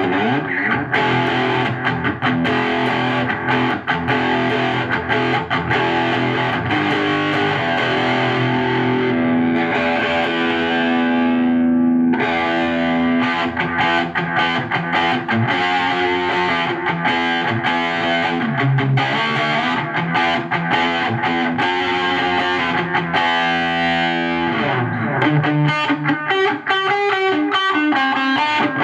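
Electric guitar played through a TS-9 Tube Screamer-style overdrive pedal and a tube amplifier, with digital delay added: distorted notes and chords played continuously, with one long held note ringing out about ten to twelve seconds in.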